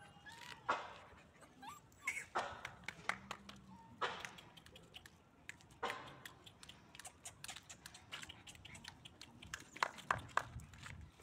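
A litter of puppies: short yips and whimpers among scattered clicks and scuffles on concrete.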